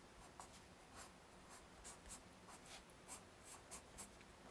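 Graphite pencil sketching on paper: faint, short scratchy strokes, about three a second, as lines are drawn in quickly and lightly.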